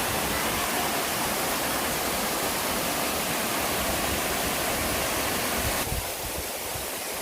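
Waterfall rushing steadily, a dense, even sound of falling water that becomes a little softer and duller about six seconds in.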